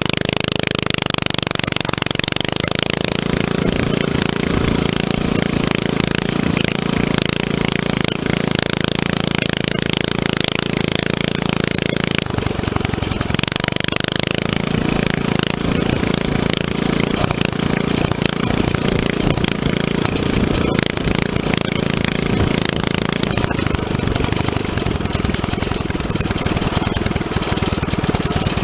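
Coleman CT200U mini bike's 196cc single-cylinder four-stroke engine running while the bike is ridden, the note rising and falling with the throttle, with a brief dip about twelve seconds in. Heard close up from a frame-mounted camera, under a steady rush of wind and road noise.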